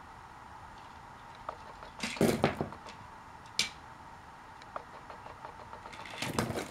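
Small plastic toy cargo pieces clattering and clicking against plastic toy train wagons as they are lifted out by hand. A burst of clatter comes about two seconds in, a single sharp click follows about a second later, and more clatter comes near the end.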